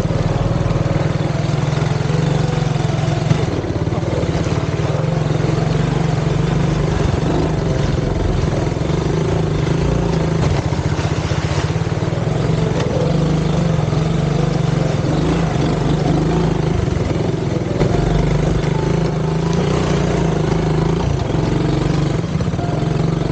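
Small ATV's engine running steadily at low speed while being ridden.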